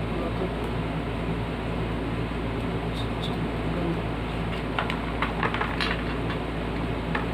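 Steady mechanical hum, with a cluster of light clicks and knocks from handling parts in the second half.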